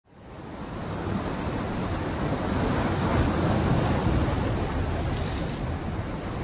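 Ocean surf breaking, with wind, as a steady rushing noise that fades in over the first second.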